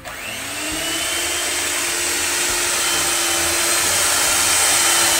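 Handheld electric mixer switching on and running steadily, its beaters whirring through egg-yolk, sugar and butter cake batter in a stainless steel bowl. The motor's pitch rises as it spins up in the first half-second, then holds steady.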